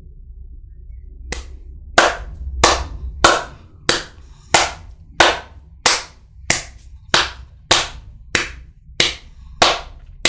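One person clapping hands slowly and steadily, about one and a half claps a second, starting a little over a second in.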